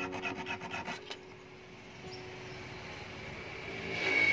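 Hand file rasping across the point of a steel fish hook in quick strokes, about five a second, stopping about a second in. A ringing tone swells near the end.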